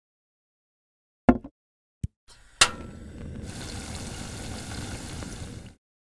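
Cooking oil being poured into a frying pan, dubbed sound effect: two short knocks, then a steady pouring of liquid for about three seconds that stops suddenly near the end.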